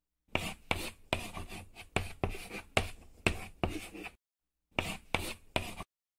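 Handwriting sound effect: a pen scratching across paper in quick strokes, each starting sharply and fading. The strokes come in a fast run of about a dozen, pause briefly about four seconds in, then a few more follow near the end.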